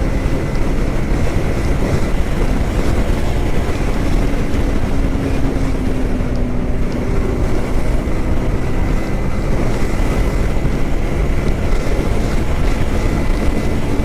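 Yamaha R15M's single-cylinder engine running at a steady cruising speed, under a heavy rush of wind on the microphone.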